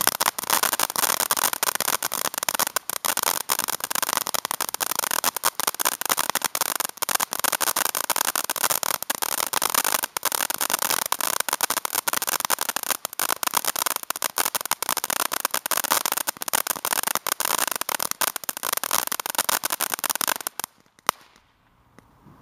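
Ground fountain firework hissing and crackling in a dense, unbroken stream of small pops as it sprays sparks. It cuts off suddenly near the end as the fountain burns out, with one last pop.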